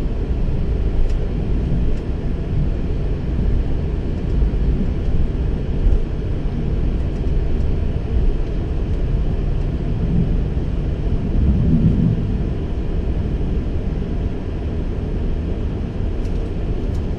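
Flight-deck noise of a Boeing 737-700 taxiing in at low speed: a steady low rumble and hum from its idling CFM56-7 engines and the cockpit air, without sudden changes.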